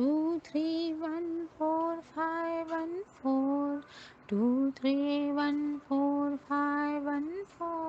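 A woman's voice chanting the number sequence 2-3-1-4-5-1-4 in a sing-song melody, holding one note per digit with short breaks between them.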